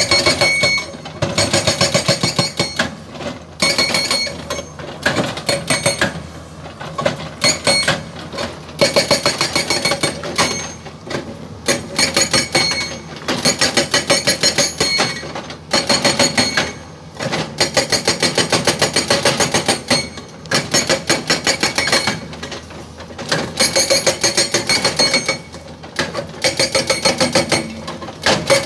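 GBN 210TL hydraulic rock breaker on an excavator hammering its chisel into a boulder: rapid, loud blows in bursts of one to three seconds with short pauses between, the steel ringing with each run.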